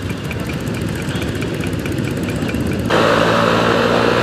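A crowd of motorcycles idling together, a low steady engine rumble with faint regular ticking. About three seconds in it cuts abruptly to a single motorcycle riding at speed on a highway, its engine running steadily and louder.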